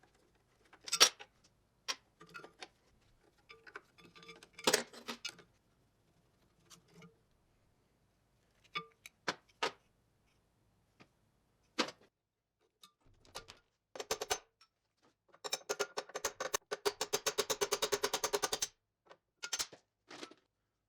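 Metal tools clanking and tapping on the parts of a 1½ hp Worthington hit-and-miss engine being worked on: scattered sharp knocks, the loudest about a second in, then a rapid run of clicks lasting about three seconds near the end.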